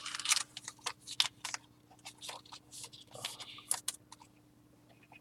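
Cardboard trading cards being handled and flipped through by hand: a run of light, irregular clicks and rustles.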